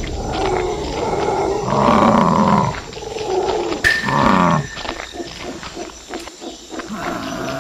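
Animal roar sound effects for animated bull creatures: a long roar in the first few seconds, then a shorter one about four seconds in that falls in pitch, after which it goes quieter.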